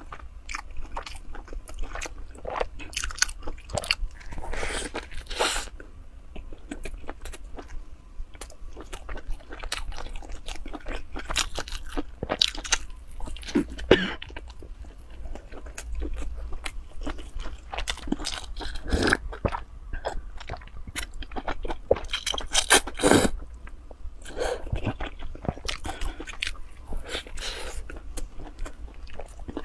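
Close-miked biting and chewing of a crispy-crusted stuffed bun: repeated irregular crunches with wet mouth sounds, the loudest bites about halfway through and again past two-thirds.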